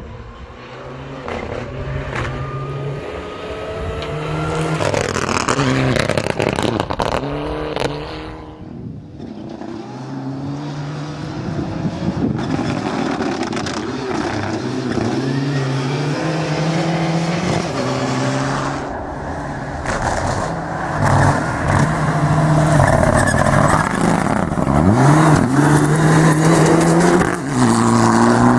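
Turbocharged Mitsubishi Lancer Evolution rally car driven flat out on a gravel stage. Its engine revs climb and drop back again and again with gear changes and lifts, over the spray of loose gravel. The sound cuts abruptly between several passes.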